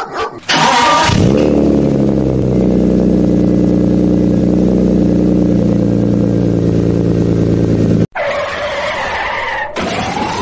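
Engine sound effect: a motor revs up about a second in, runs steadily at an even pitch for about seven seconds, then cuts off suddenly. A noisier sound follows, with a rising whistle-like tone near the end.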